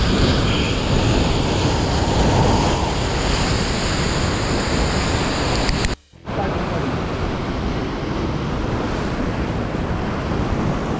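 Ocean surf washing and breaking against the rocks below in a steady, loud rush, with wind buffeting the microphone. The sound drops out briefly about six seconds in.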